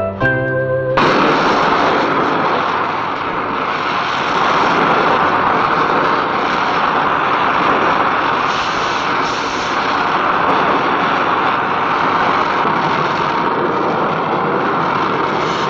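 Plucked guitar music cuts off about a second in, giving way to the steady hiss of an oxy-acetylene gas torch working on a steel rail.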